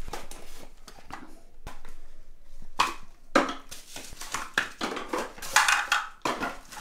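Unboxing handling noise: irregular rustling of packaging and light knocks and clicks of small boxes and items being picked up and set down on a tiled floor.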